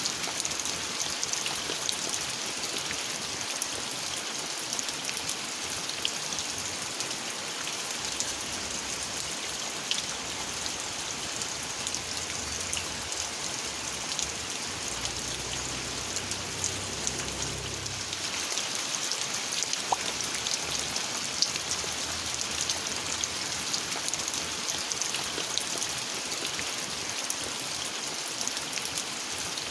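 Steady rain falling, with single drops ticking sharply over the even hiss. A low rumble rises under it for a few seconds about halfway through.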